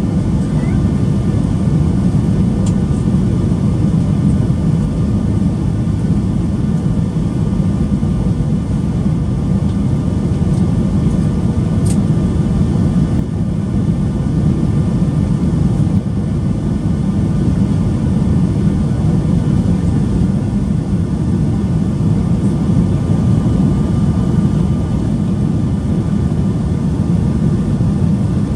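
Steady low rumble of a Boeing 737-800 heard from inside the passenger cabin: its CFM56 engines and the airflow around the fuselage make an even, unbroken roar.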